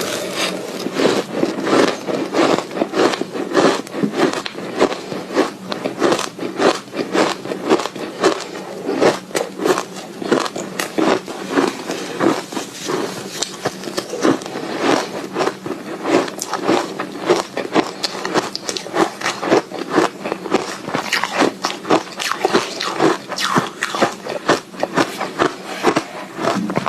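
Soft ice being bitten and chewed close to the microphone: a continuous run of crisp, crackling crunches, several a second.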